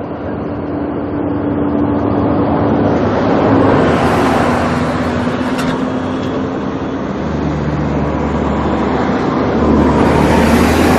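Jet airliner on landing approach passing by, a steady engine rush that swells to a peak about four seconds in and again near the end.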